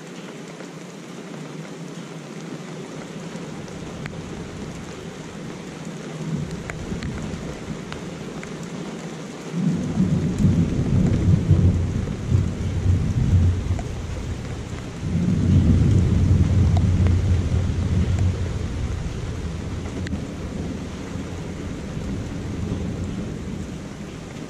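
Thunder rolling over steady rain: two long low rumbles, the first about ten seconds in and the second about fifteen seconds in, dying away slowly afterward.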